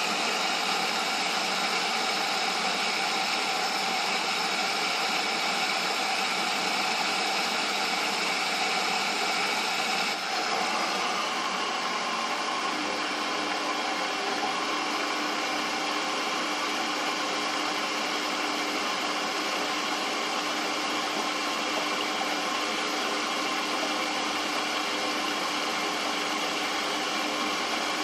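Fagor washing machine running during a towel wash: a steady mechanical hum with a hiss. The sound shifts slightly about ten seconds in, and a steady low hum comes in soon after.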